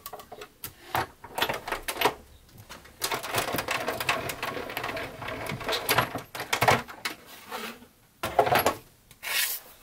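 Manual die-cutting machine being cranked, a die passing through its rollers: scattered clicks, then a few seconds of steady clattering rattle, and two short bursts of noise near the end.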